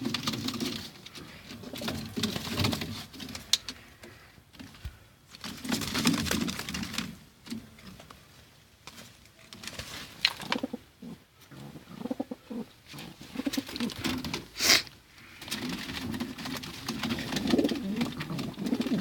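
Bokhara trumpeter pigeon cocks cooing in repeated bouts of a few seconds each while sparring, with a single sharp crack about three quarters of the way through.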